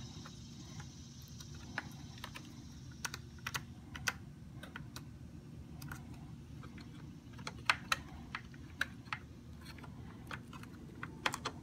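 Irregular light clicks and taps of plastic wire connectors and wires knocking against a hoverboard's opened housing as a wire harness is pushed through it, with a bunch of clicks about three seconds in and another around eight seconds. A steady low hum sits underneath.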